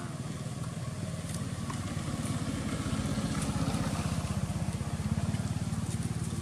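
Motorcycle engine running, a steady fast low pulsing that grows louder toward the middle and eases a little near the end.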